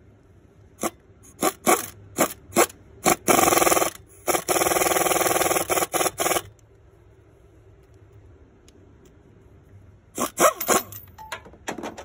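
Pneumatic air ratchet driving the new fan hub's mounting bolts: a string of short trigger bursts, two longer runs in the middle, then a few more short bursts near the end.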